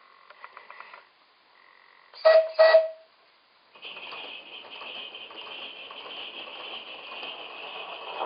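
Two short toots of the DJB resonator whistle on an Accucraft NGG16 Garratt live-steam model, blown on compressed air, about two seconds in. About four seconds in, a steady hiss of air exhaust starts as the locomotive runs along the track.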